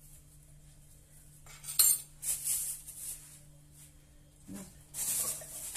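A spoon clinking and scraping as cornstarch is scooped and added to a glass bowl of cookie dough. There is a sharp clink about two seconds in, scraping after it, and more scraping near the end.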